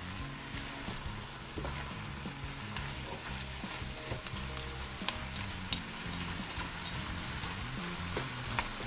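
Chicken gizzards, hearts and vegetables sizzling in a frying pan while a silicone spatula stirs them, with a few sharp clicks of the spatula against the pan.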